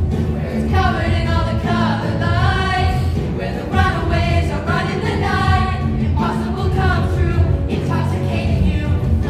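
Stage cast singing together into microphones over amplified backing music with a steady bass line.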